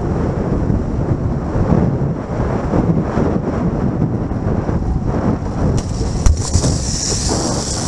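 Wind buffeting the camera microphone of a rider on a high-speed zip wire, with the trolley running along the cable. About six seconds in, a higher hiss and several sharp clacks come in as the trolley slows into the landing.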